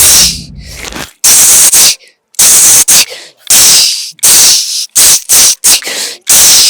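Vocal mimicry of ghungroo ankle bells jingling: about a dozen sharp, hissing mouth bursts in an uneven, bouncing rhythm.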